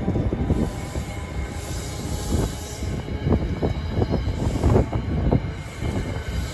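NJ Transit single-level passenger coaches rolling past, their wheels rumbling steadily on the rails. A run of sharp clacks from the wheels crossing rail joints comes about three to five seconds in.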